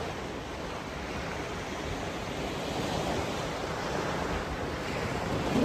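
Steady rushing noise of strong wind on the microphone mixed with surf breaking on the beach.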